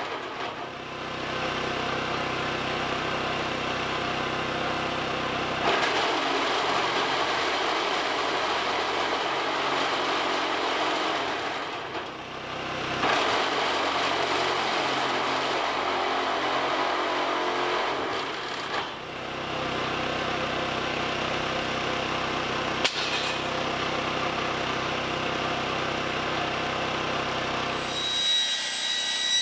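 Corded power tool cutting a round hole through a corrugated metal roof panel for a stove pipe, its motor running steadily in three long runs with brief pauses about 12 and 18 seconds in. It stops shortly before the end.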